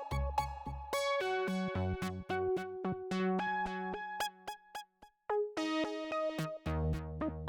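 Background music: a light synthesizer and electric-piano melody of short notes over a bass line, with a brief pause about halfway through.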